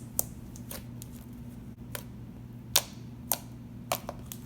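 Sticky white glue slime being handled, giving about seven sharp, irregular clicks and pops, the loudest near the end, over a steady low electrical hum.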